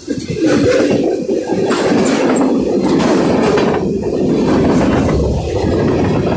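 Railroad cars of a passing train rolling by close at hand, the wheels clacking over the rails in a steady, repeating pattern.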